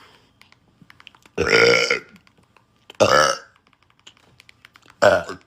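A man burping loudly three times in a row, each burp a separate short belch, the first the longest at about half a second.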